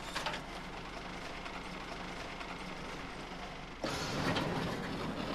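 Steady low hum of a packing-line conveyor and strapping machine running. About four seconds in it gives way abruptly to a louder, even rushing noise with some crackle.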